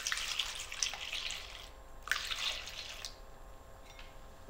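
Milk being poured from a jug into a bowl of beaten eggs. It comes in two pours: the first runs until about a second and a half in, and after a short pause a second pour lasts about a second.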